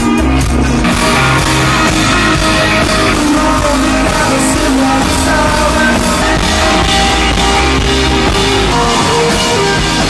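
Rock band playing: electric guitar, drum kit and a singing voice, loud and continuous.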